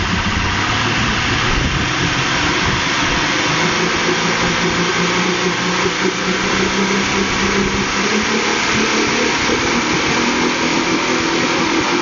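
Lifeboat's outboard engines running steadily on a dynamometer test, over a constant rush of spraying water. The engine note steps up slightly about four seconds in.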